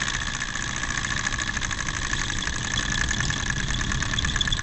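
Small ethanol-fired Stirling engine running with a steady mechanical whir and a fast, even ticking, coasting on its remaining heat after the flame has been blown out.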